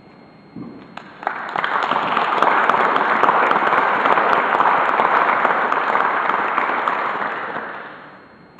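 Audience applauding: the clapping starts about a second in, holds steady, then fades out near the end.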